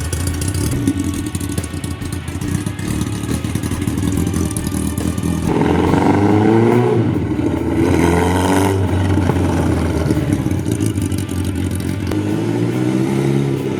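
1979 Kawasaki KZ1000's air-cooled inline-four engine running and accelerating on its first test ride after the rebuild. The pitch rises as it revs up through the gears, about five seconds in, again a couple of seconds later, and once more near the end.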